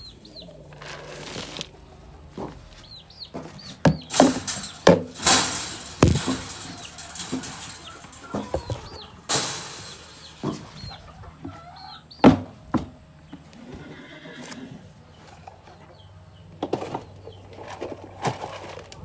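Horses at feeding time: irregular knocks and bangs, a dozen or so spread unevenly, with a few short high chirps between them.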